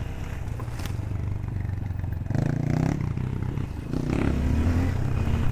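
AVETA VTM 250 LX motorcycle engine running as it rides a rough off-road trail, picking up with the throttle about two seconds in and again near the end, with some clatter and scraping from the trail.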